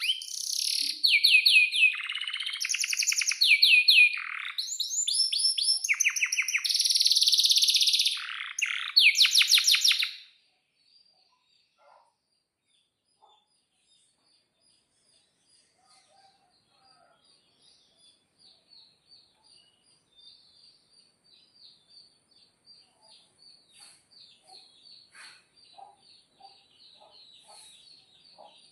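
Male domestic canary singing loudly in fast trills and long rolls of rapidly repeated notes. About ten seconds in, the song stops abruptly. Afterwards a faint, rapid twittering slowly grows louder.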